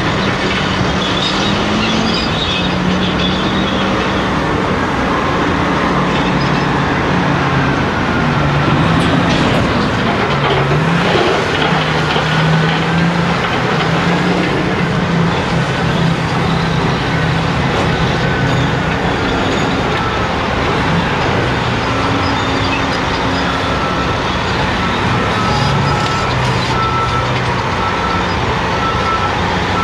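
Heavy diesel engines of a Caterpillar 385C excavator and a Cat 773E dump truck running, the excavator's engine note rising and falling as it swings and digs. About ten seconds in, a bucketful of broken rock crashes into the truck's steel bed. Near the end, a reversing alarm beeps at a steady rhythm.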